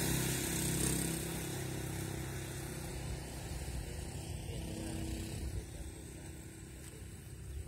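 A small vehicle engine, motorcycle-like, running steadily and growing fainter as it moves away.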